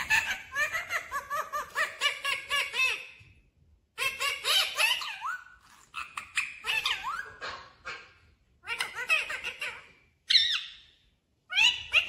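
Indian ringneck parakeet chattering: high, squeaky calls that bend quickly up and down in pitch, coming in about six bursts with short pauses between.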